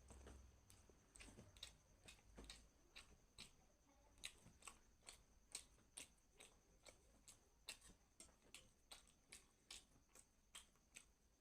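Faint mouth clicks of someone chewing food, about two to three a second.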